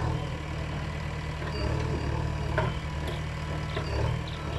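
Heavy diesel engine of a JCB backhoe loader running steadily, with a few faint knocks in the second half.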